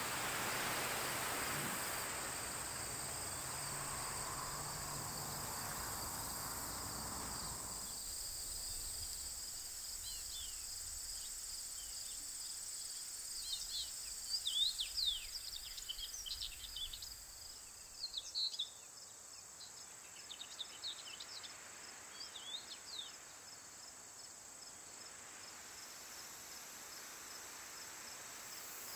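Evening meadow ambience: crickets or other insects trilling steadily, with short bird chirps in the middle stretch. A soft rushing noise is heard at first and fades out about eight seconds in.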